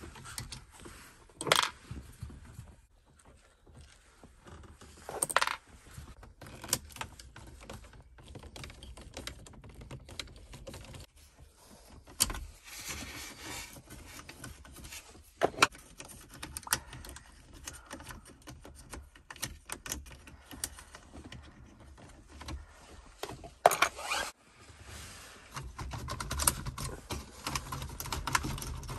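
Screwdriver and plastic dashboard trim of a BMW E30 being worked by hand: scattered clicks, scrapes and rattles, with a few sharper clacks, as screws come out and the center console panel is pried and pulled loose.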